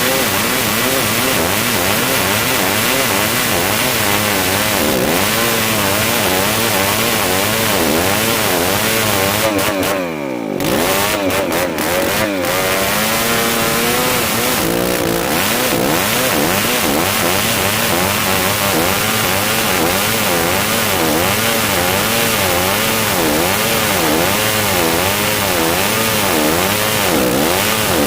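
Old two-stroke chainsaw running at high revs while cutting dry merbau hardwood. Its engine pitch wavers up and down as the chain bites, easing off briefly about ten and twelve seconds in.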